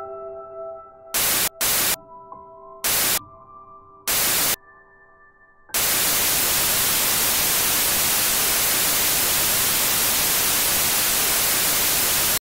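Television static effect: four short bursts of static hiss in the first five seconds, broken up by soft sustained electronic notes of a logo jingle, then loud steady static hiss from about six seconds in.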